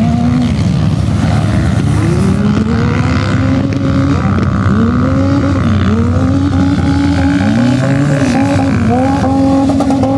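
Engines of several off-road vehicles revving, their pitch repeatedly rising and falling over a steady low engine hum.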